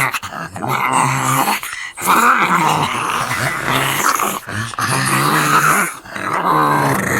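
Zombie-dog horror sound effect: low, rough dog growling and snarling in several long phrases separated by short breaks.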